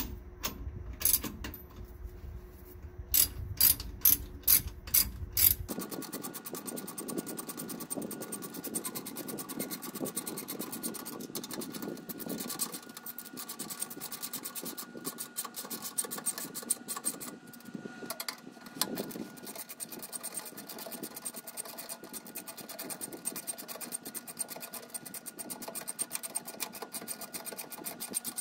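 Hand socket ratchet clicking as bolts are run into a steel trac bar bracket on the rear axle. A few separate sharp clicks come first, then from about six seconds in there is fast, steady clicking.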